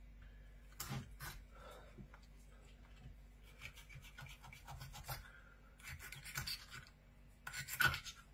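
Knife blade rasping through the rough, sandpaper-like skin of a dogfish as its fins are cut off, in short irregular scraping strokes, the loudest near the end.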